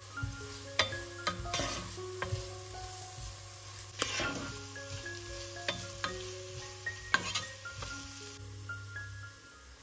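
Chopped onion and carrot sizzling in oil in a nonstick pan while a wooden spoon stirs them, with several sharp knocks of the spoon against the pan. Light background music plays underneath.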